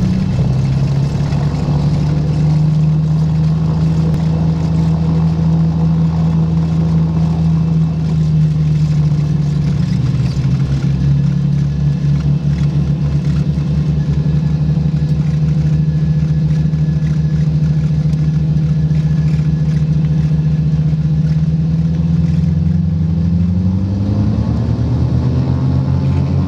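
Cessna 404 Titan's twin turbocharged six-cylinder Continental piston engines running at low taxi power, heard from the cockpit, the two engines slightly out of step so the drone pulses in a steady beat. Near the end the pitch rises smoothly as the throttles are advanced for the takeoff run.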